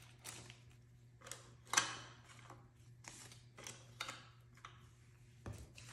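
Paper banknotes being handled: soft rustles and flicks as a stack of bills is set down and another picked up, with a few sharper strokes, the loudest about two seconds in.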